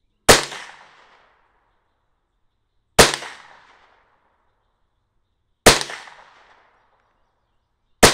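Four shots from a 1988 Marlin Model 60 semi-automatic .22 LR rifle firing Aguila hollow-point rounds, evenly spaced a little under three seconds apart. Each shot is a sharp crack that trails off in a short echo; the fourth comes right at the end.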